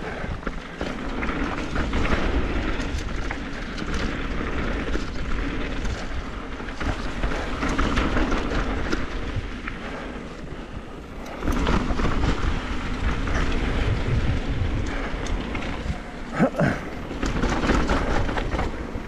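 Mountain bike riding fast down a dirt trail: tyres rumbling over dirt and gravel with constant rattle and clatter from the bike. It gets louder about eleven seconds in, and there is one sharp knock near the end.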